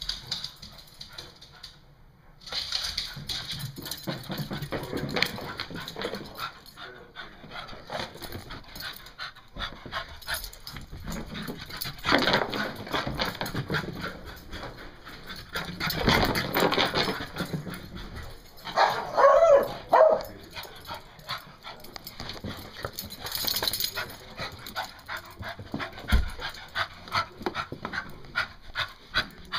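An excited beagle scampering about, whimpering and panting, with a loud pitched cry about two-thirds of the way through. Scuffling and clicking sounds of movement run throughout.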